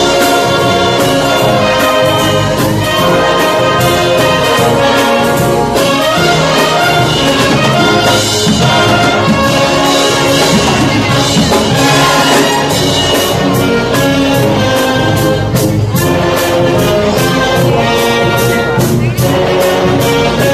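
A band playing instrumental music, several sustained melodic instruments over a steady beat.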